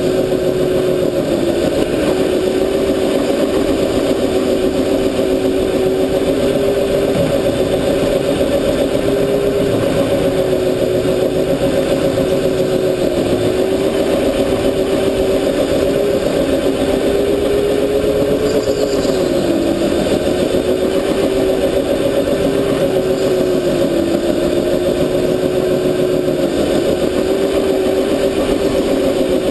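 Rental go-kart's motor running steadily at speed, heard from on board the kart: a steady droning note that dips slightly now and then through the corners.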